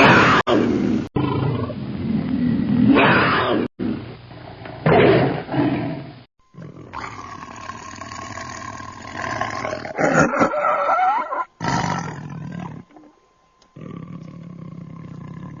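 Tiger growls and roars: several separate deep, rumbling growl recordings, spliced one after another with abrupt cuts and short gaps between them.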